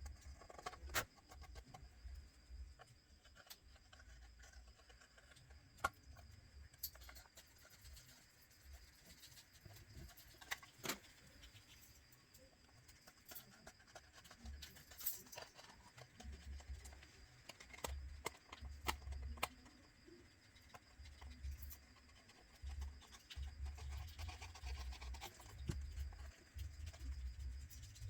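Faint scraping, sharp little clicks and taps of a hand tool picking and rubbing old adhesive off a smartphone's frame, with low bumps of handling on the work surface, more often in the second half.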